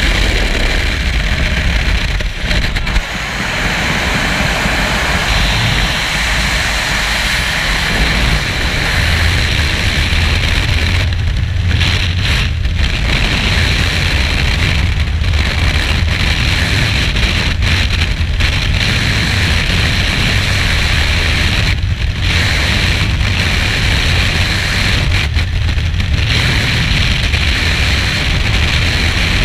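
Loud, steady rush of freefall wind blasting over a skydiving camera's microphone. Several times it dips out for a moment.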